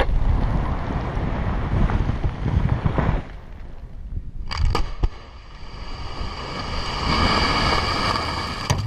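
Rock blasting: the rumble of rock and debris from a quarry blast ends about three seconds in. A second blast follows, a few sharp cracks about four and a half seconds in, then a growing rush of falling rock and dust.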